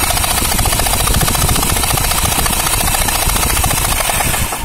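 A heavy electric drill runs steadily and loudly, spinning a Hero Pleasure scooter engine's crankshaft with the spark plug removed to test the new oil pump's pressure. It cuts off abruptly near the end.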